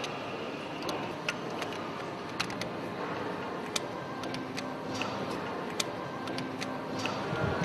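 Irregular sharp metallic clicks and clinks of hand tools working on bolts of a large diesel engine's cylinder head, over a steady background hiss.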